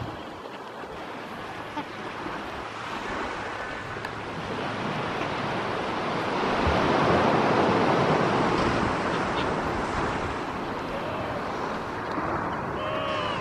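Surf and wind noise on a beach, a steady rush that swells louder about six seconds in; a few faint short pitched calls come near the end.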